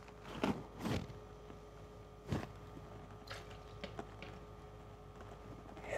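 Quiet room with a faint steady hum, broken by a handful of soft knocks and handling noises, the loudest a little over two seconds in.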